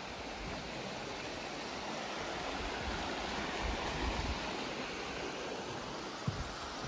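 Rocky mountain creek rushing over rapids in a steady wash of water, a little louder in the middle, with a low thump near the end.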